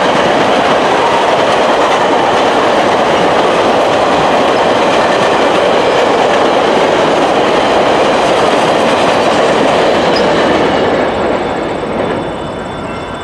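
VIA Rail passenger train's stainless-steel cars passing close by at speed: a steady loud rush of steel wheels on rail, dropping off about eleven seconds in as the last car goes by.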